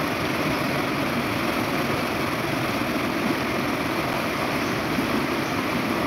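River rapids rushing steadily over rocks, a constant full roar of white water.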